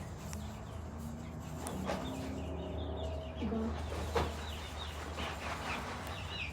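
Young chickens clucking softly, with a few short calls in the middle, over a steady low hum and a few light clicks.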